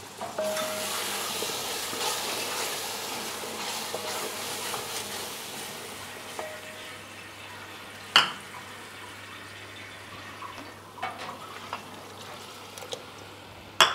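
Cashew paste frying and sizzling in a pan of spiced peas masala as it is stirred with a wooden spatula; the sizzle dies down after about six seconds. A single sharp knock comes about eight seconds in, with a few light taps near the end.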